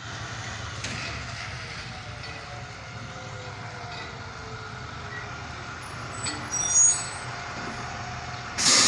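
School bus engine running steadily at idle, a low hum with faint slowly falling tones. A brief high-pitched squeal comes about six and a half seconds in, and a short loud burst of noise right at the end.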